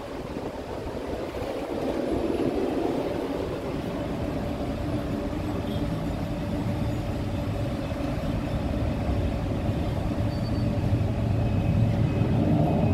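A large vehicle running nearby: a steady low rumble with a hum, slowly growing louder.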